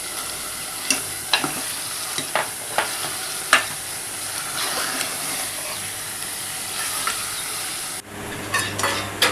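Tomato and onion-masala gravy sizzling in a pan as it is stirred with a spoon, the spoon knocking against the pan every second or so. The sizzle breaks off abruptly about eight seconds in, then a few more knocks follow.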